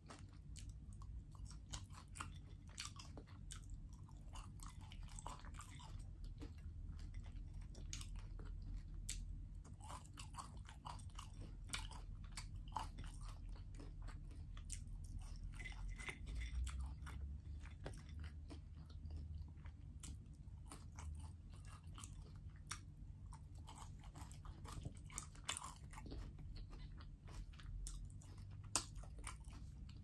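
A person chewing and biting roasted chicken and fried potatoes, with many small crunches and clicks scattered irregularly throughout.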